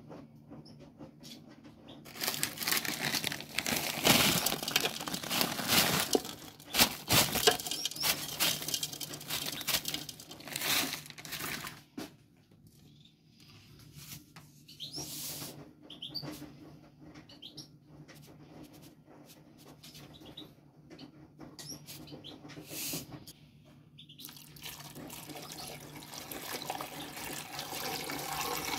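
Rustling and knocking from ingredients being handled in a metal cooking pot, loudest in the first half, then water poured into the pot in the last few seconds.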